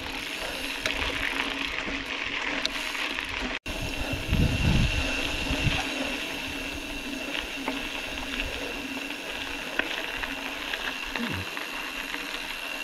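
Mountain bike coasting downhill, its rear freehub ratcheting steadily, over tyre and wind noise.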